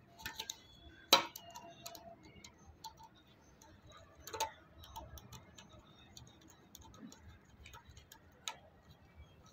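Scattered small clicks and taps from a screwdriver working the terminal screws of a plastic modular socket and switch as wires are fastened in and the fittings are handled; the loudest tap comes about a second in, with others near four and a half and eight and a half seconds.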